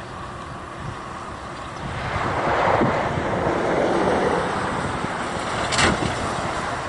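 Jet engines of a four-engine airliner climbing away after takeoff: a distant rumbling roar that swells about two seconds in, with wind buffeting the microphone. A short sharp knock near the end.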